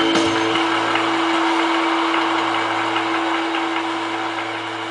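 Applause fading away as the song ends, over a held low note that sustains under it.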